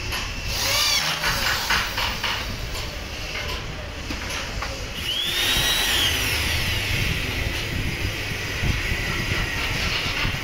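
Electric hand drill boring into a hardwood chair frame. It runs in several short bursts in the first two seconds, its pitch rising and falling, then about five seconds in it spins up to a steady whine and runs for several seconds.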